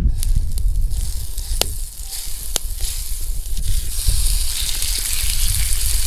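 Bacon sizzling in a pan over a campfire, with a few sharp pops; the sizzle grows louder about four seconds in. Wind rumbles on the microphone underneath.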